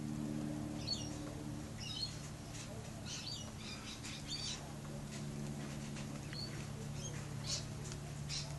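Small birds chirping in short, high bursts in clusters, over a steady low hum.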